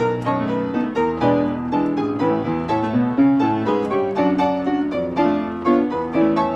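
Pianola (player piano) playing a perforated paper roll: a steady stream of piano notes and chords in an even rhythm.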